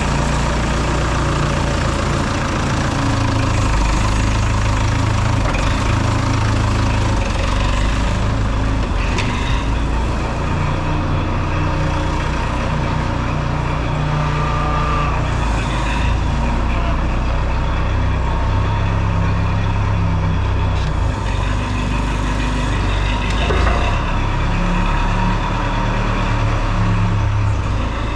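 Band sawmill engine running steadily under load, its pitch stepping up and down several times, with the band blade noise of sawing through a maple log over it.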